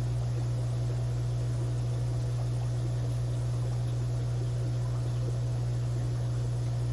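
Steady low electrical hum with a faint hiss, unchanging throughout, typical of mains-powered aquarium equipment such as a filter or air pump running.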